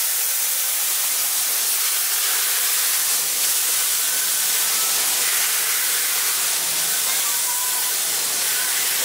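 Steam hissing steadily as it escapes around the cylinders and driving wheels of a MÁV Class 424 steam locomotive, with no exhaust beats.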